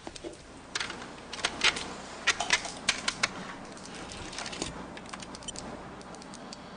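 A quick, irregular run of sharp clicks and taps, about a dozen over two seconds, then a faint steady background.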